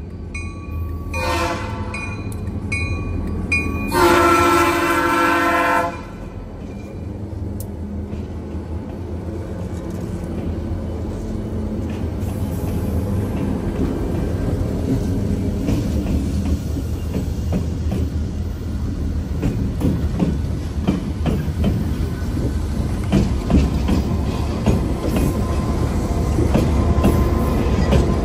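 A diesel locomotive air horn sounds a short blast, then a long one of about two seconds. A lashup of EMD diesel locomotives then rumbles past, growing louder, with steady clickety-clack of wheels over the rail joints.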